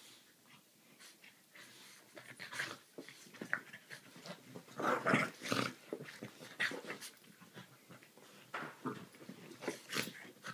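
Two pet dogs play-fighting, one on its back: a run of short, irregular dog vocal noises that start about two seconds in and are loudest around halfway through.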